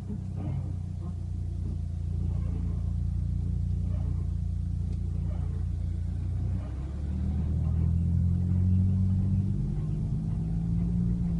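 Ford Fiesta Mk7.5 EcoBoost engine running with a steady low drone; about seven seconds in, the pitch rises and it gets louder. This is the sound the owner finds weird.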